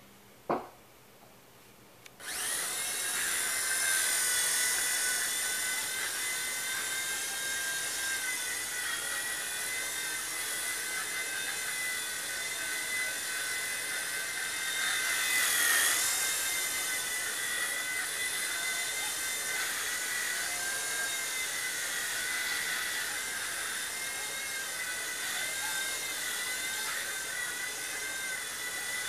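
V911 micro RC helicopter's small electric motor and rotor starting suddenly about two seconds in after a single click, then running on as a high whine whose pitch wavers with the throttle. The helicopter carries heavy CNC aluminium upgrade parts, and the owner thinks the little motor can't pull the extra weight.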